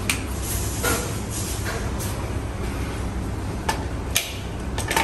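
A plug-in three-lamp socket tester being handled and pushed into a three-pin wall socket, giving several short plastic clicks, the sharpest about four seconds in, over a steady background hiss and hum. The electrician is testing each socket's wiring.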